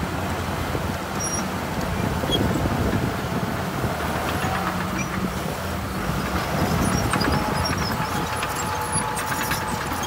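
Heavy earthmoving machine's diesel engine running steadily under load, with a faint steady whine joining about two-thirds of the way in and a few light clanks near the end.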